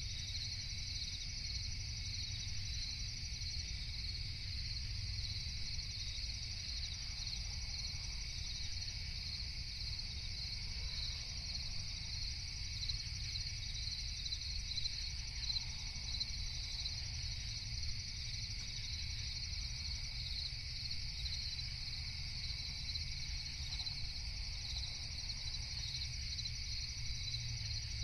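Night insects, crickets among them, chirring continuously in a steady high-pitched chorus, over a low constant rumble.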